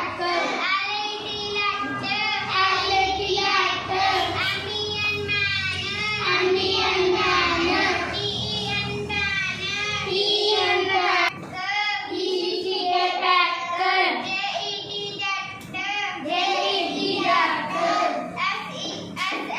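A group of children chanting English words and their spellings aloud in unison, in a sing-song rhythm.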